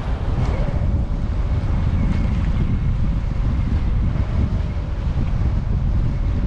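Strong wind buffeting the microphone: a steady, heavy low rumble, with a faint steady tone running through most of it.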